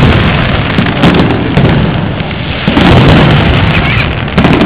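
Aerial fireworks shells bursting: a run of loud booms about a second apart, each fading into a rumble.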